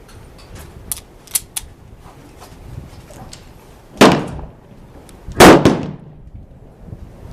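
Two loud pistol shots about a second and a half apart, each with a short echoing tail, after a few fainter sharp clicks early on.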